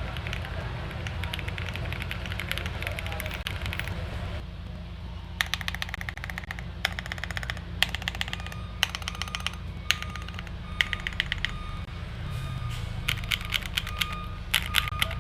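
Typing on a custom mechanical keyboard with lubed Akko POM Silver linear switches, a PC plate and GMK-style keycaps: a dense, fast run of keystrokes for about four seconds, then short quick bursts of keystrokes separated by brief pauses, over a steady low hum.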